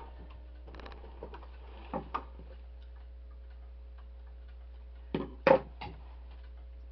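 Clicks and knocks of a sewing machine and fabric being handled after a seam: two light clicks about two seconds in and a louder cluster of sharp knocks near the end, over a faint steady hum and soft even ticking.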